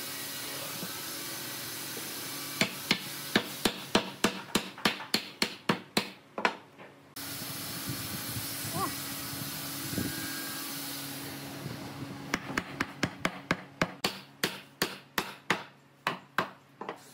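A mallet knocking a wooden chair rail and armrest home onto the chair's slatted pine side: two runs of quick blows, about four a second, the first a few seconds in and the second in the last few seconds, over a steady hiss.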